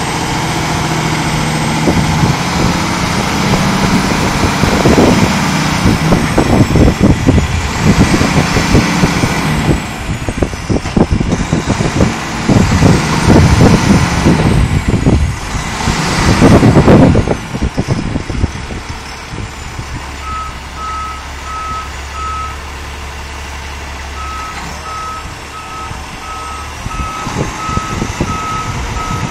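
Heavy winch truck's diesel engine working under the load of winching a building onto its trailer, running loud and surging in waves for about ten seconds before easing off. From about two-thirds of the way in, a backup alarm beeps steadily.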